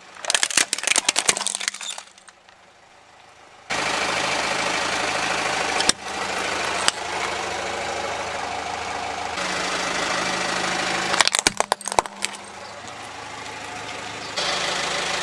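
Plastic toys cracking and snapping under a car tyre: a quick run of cracks at the start and another burst a little past the middle, with the car's engine idling steadily between them.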